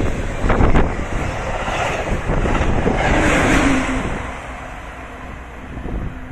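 MARC passenger train passing close by at high speed: a loud rush of wind and rail noise as the cars go by, fading after about four seconds.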